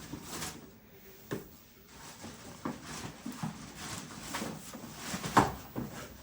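Scattered clicks, knocks and rustling as computer parts and packaging are handled and rummaged through, with one sharper knock about five seconds in.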